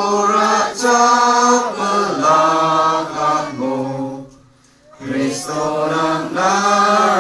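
Congregation singing a hymn together from hymn books, holding long notes in phrases, with a break of about a second a little past the middle.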